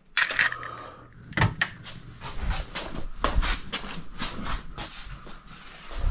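Kitchen handling noises: a brief crackle of emptied eggshells in the hand at the start, then a sharp knock and a run of irregular small clicks, knocks and rustles as things are moved about on a counter.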